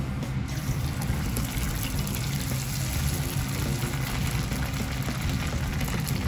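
Potato-starch-coated tofu frying in hot oil: a steady sizzling hiss that comes up about half a second in, as the block settles into the oil.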